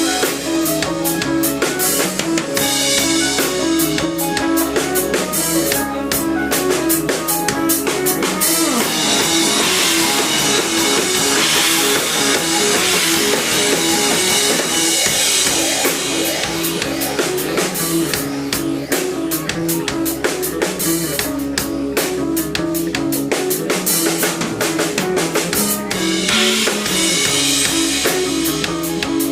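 Instrumental stoner rock band playing live: a drum kit pounding steadily under distorted guitars and bass. The drum hits thin out for several seconds in the middle while a wash of cymbals and guitar takes over, then the full beat returns.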